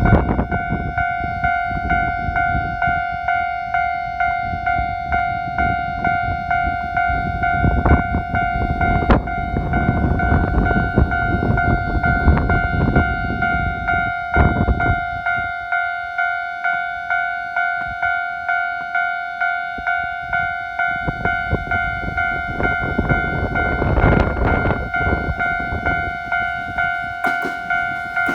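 Japanese railway level-crossing warning alarm ringing: an electronic ding repeating at a steady, even pace. Low rumbling noise runs under it through much of the first half and returns briefly later on.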